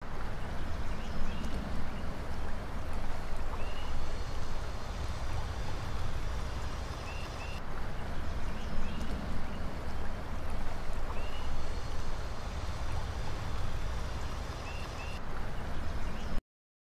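Woodland pond ambience: a low steady rumble with short bird chirps and stretches of a high steady trill. The same pattern repeats about every seven and a half seconds, and it all cuts off suddenly near the end.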